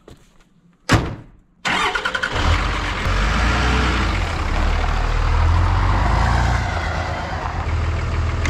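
The hood of a 2003 Dodge pickup is slammed shut with one loud metal bang about a second in. Then a steady, loud vehicle engine noise with a low rumble starts abruptly and keeps going.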